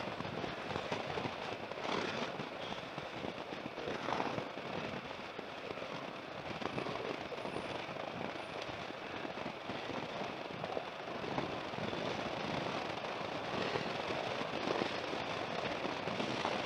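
Wind rushing over the camera's microphone on a moving motorcycle, a steady crackling rush with no clear engine tone.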